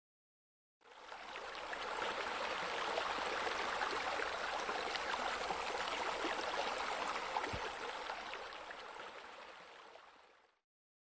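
Steady running water, a continuous splashing flow. It fades in about a second in and fades out near the end.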